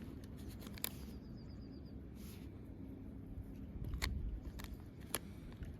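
Scattered light clicks and taps of small plastic parts being handled and fitted into a cordless screwdriver's plastic housing, over a low steady background hum.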